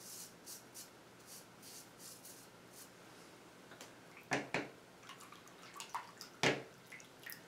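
Merkur 34C double-edge safety razor scraping through lathered stubble on the chin in short strokes, then rinsed at the sink: faint running water and a few sharp knocks, the loudest about four and a half and six and a half seconds in.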